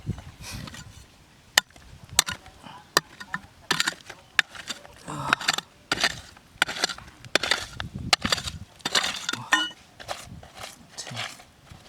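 Irregular scrapes and sharp clinks of a hand tool digging through soil and stones, about a dozen strikes with scraping in between.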